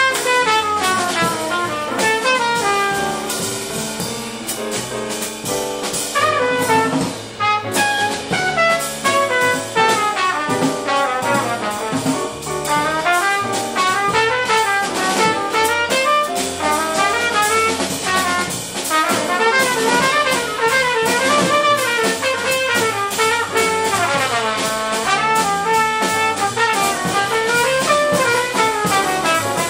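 Jazz quartet playing: a trumpet solos in quick runs of notes that climb and fall, over piano, double bass and drum kit.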